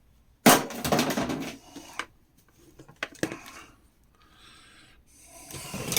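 A scrap part thrown into a bin, landing with a loud clatter about half a second in, followed by a few lighter knocks and clicks of handling.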